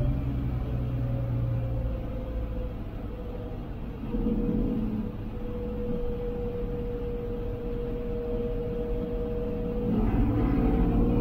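A 1966 Dodge A100's slant-six engine running as the truck drives, heard inside the cab, with a steady whine over the low rumble. It gets louder about four seconds in and again near the end as the truck pulls away.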